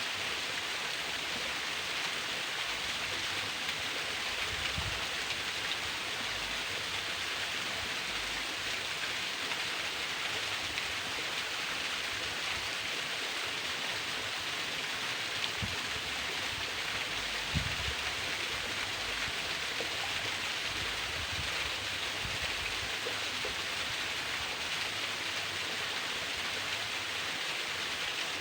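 A thin waterfall splashing steadily, an even rushing hiss of falling water, with a few soft low thumps.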